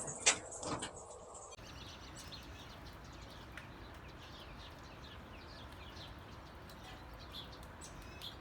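Small songbirds chirping over a steady outdoor background, many short, falling chirps repeated throughout. A few sharp knocks sound in the first second.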